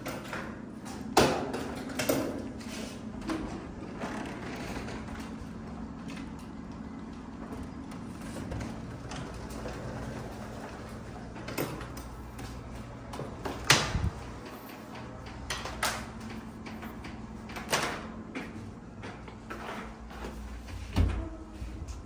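Upright vacuum cleaner running with a steady low hum as it is pushed over a hard floor, broken by a scatter of sharp knocks and clacks, the loudest about a second in, around the middle and near the end.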